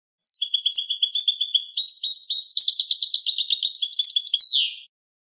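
European goldfinch singing a clean song: one unbroken phrase of rapid, high twittering and trilled notes lasting about four and a half seconds, ending in a single falling note.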